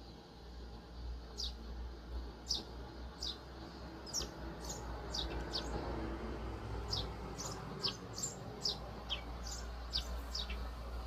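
Eurasian tree sparrows chirping: about twenty short, falling chirps come at irregular intervals, bunched two or three a second in places.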